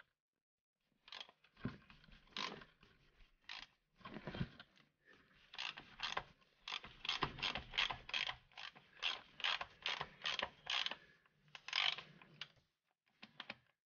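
Hand socket ratchet clicking in short runs as it is swung back and forth on the oil filter housing, working to loosen it. The runs come thicker and more regular in the second half.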